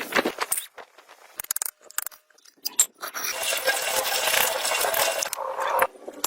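Metal parts clinking and knocking against each other, then about three seconds of steady rasping noise that stops abruptly near the end.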